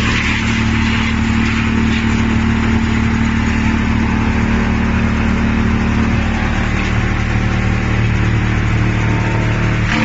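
Wood chipper running steadily as a log is fed in: a low hum under a rough, continuous rushing noise.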